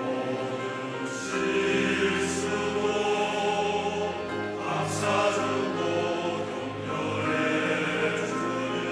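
A large church choir singing a hymn in Korean, with steady, sustained voices.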